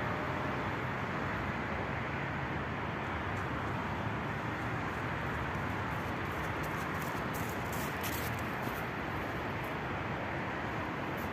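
Steady rumble of road traffic, with a few faint clicks about seven to nine seconds in; no crossing warning bell is heard.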